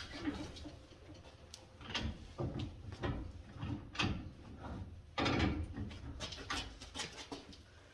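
Pipe wrench being worked on a threaded water-pipe coupling: irregular metal clicks, knocks and scrapes as the jaws grip and are reset on the pipe. The loose, leaking joint is being tightened.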